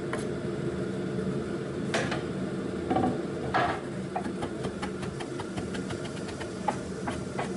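Bacon frying in a pan over a steady low hum. In the second half a knife chops chili peppers on a plastic cutting board in rapid taps.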